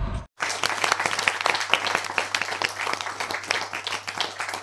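Applause: many hands clapping in a dense, irregular patter that starts suddenly about a third of a second in, with a steady low hum underneath.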